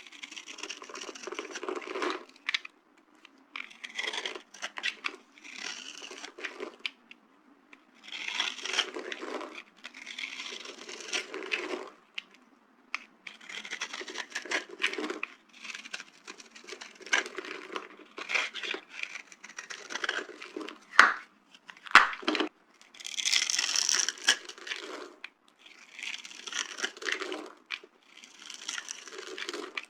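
Dry soap being crushed, crunching and crumbling in repeated bursts of a second or two with short pauses between. A few sharp snaps come about two-thirds of the way through.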